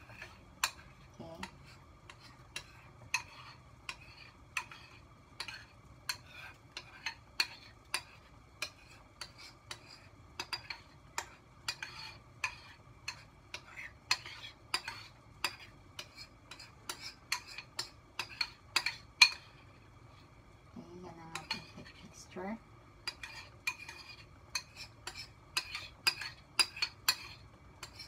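Spoon scraping and clicking against the inside of a ceramic bowl as the last of the cake batter is scraped out into the steamer. The clicks come irregularly, about one or two a second, with a short pause about two-thirds of the way through.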